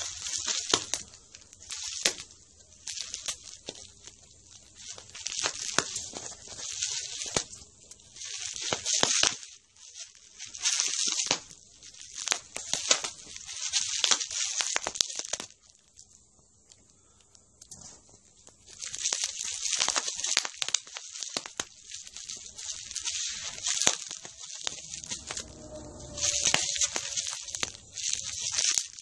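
Dog chewing a sheet of bubble wrap: plastic crinkling and rustling in bursts, with sharp pops as the bubbles burst, and a pause of about two seconds a little past halfway.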